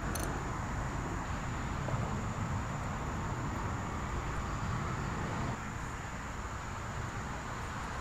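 Steady outdoor background rumble and hiss, with a faint click just after the start; it drops a little in level about five and a half seconds in.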